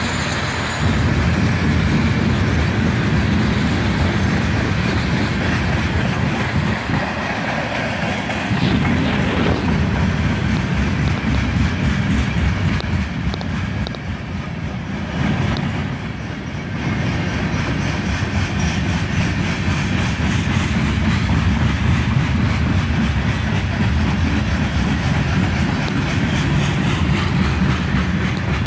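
A CSX manifest freight train's cars rolling past close by, a loud, steady noise of steel wheels running on the rails.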